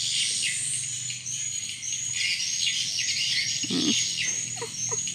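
Outdoor chorus of many birds chirping in quick, repeated calls, over a steady high insect buzz.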